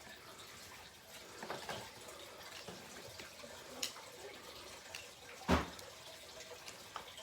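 Faint scattered clicks and rustles of small-object handling, with one louder thump about five and a half seconds in.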